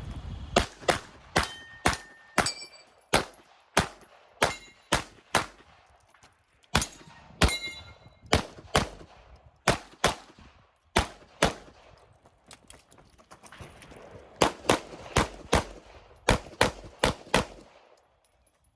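Glock 48 9mm pistol fired through a stage run: about thirty shots in quick pairs and short strings, broken by pauses of a second or two between positions. Some shots are followed by a short metallic ring, as steel targets are hit.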